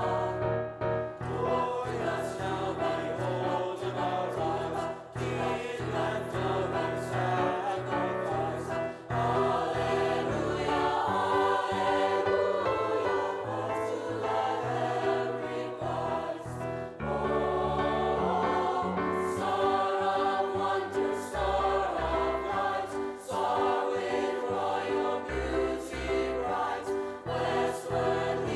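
School choir singing a Christmas carol.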